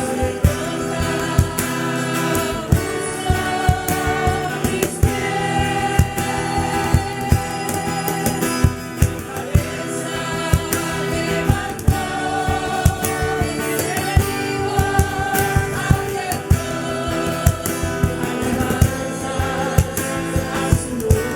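Worship song sung by a group of voices over instruments with a steady beat.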